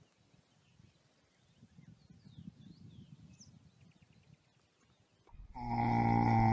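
A horse lying asleep on its side gives a long, low, drawn-out groan that starts about five seconds in, after a few seconds of near quiet.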